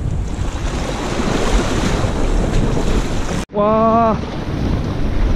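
Wind blowing across the microphone over sea waves washing against rocks. About three and a half seconds in the sound cuts out for an instant, then a man gives a short shout.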